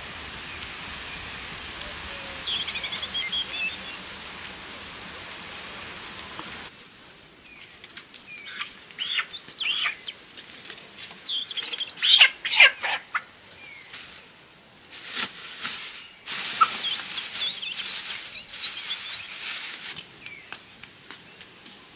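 Steady wind hiss with small birds chirping. Then a live white broiler chicken squawks and beats its wings in irregular bursts as it is carried by its legs and set down, loudest about twelve seconds in.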